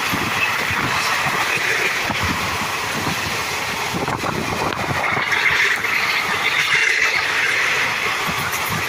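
Air-conditioned coaches of the Puri–Yesvantpur Garib Rath express running past close by at speed: a steady rush of steel wheels on the rails, with a few short clacks.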